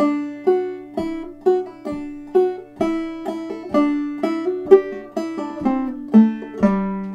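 Five-string banjo played clawhammer style in double D tuning: a slow, even phrase of plucked notes, about two a second, with hammer-ons, pull-offs and drop-thumb strokes over a ringing drone.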